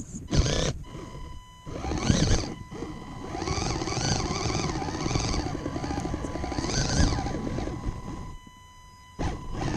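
RC rock crawler's electric motor and gear train whining as it crawls over dirt, the pitch wavering with the throttle over a thin steady high tone. It starts and stops in short spurts, runs steadily for several seconds, then cuts out about a second before the end and briefly starts again.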